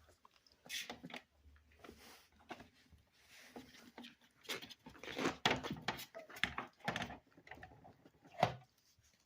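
Four-week-old Rottweiler puppy being handled on a weighing scale: irregular scuffling, rustling and knocks, busiest in the middle, with one sharp knock near the end.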